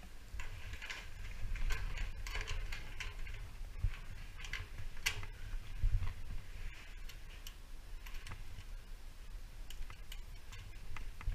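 Irregular small metallic clicks and taps of hands working a fastener on the flange edge of a sheet-metal ventilation duct panel, over a steady low rumble.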